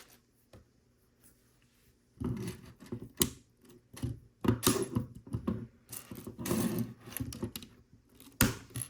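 Plastic Lego bricks clicking and clattering as they are handled and knocked together, a run of irregular sharp clicks that starts about two seconds in after a short quiet.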